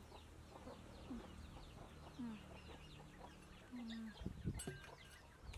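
Chickens clucking now and then in short falling calls, with faint high chirping throughout. A few dull knocks and a sharp click come about four seconds in.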